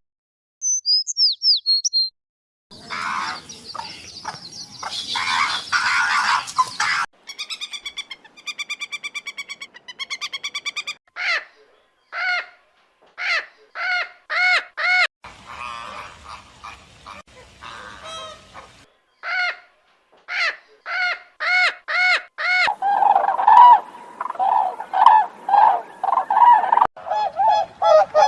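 A string of different bird calls cut one after another: a few quick high chirps of a small bird at the start, then harsh squawks, then runs of loud repeated calls, and honking like a goose's near the end.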